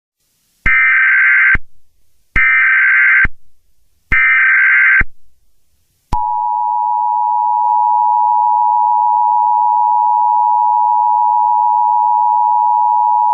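Emergency Alert System SAME header: three bursts of data tones, about a second each and a second apart. About six seconds in, the steady two-tone EAS attention signal starts; together they announce an emergency alert broadcast.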